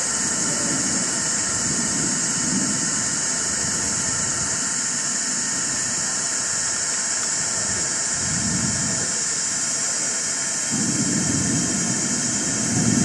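Steady, loud high-pitched hiss, with low muffled rumbles that swell and fade a few times and are strongest near the end.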